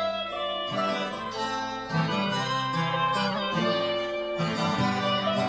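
Acoustic guitar played in a live folk song, a short instrumental passage between sung lines, with a new chord about every second.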